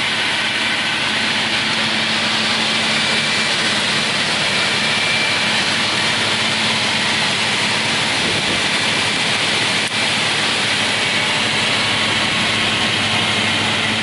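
Raimann KR 230D crawler-feed multi-rip saw running steadily, a constant whine over an even mechanical noise, with a brief dip about ten seconds in.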